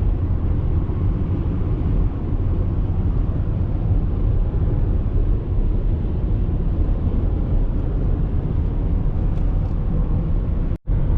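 Steady low road and engine rumble inside a moving car's cabin at highway speed, cutting out for a split second near the end.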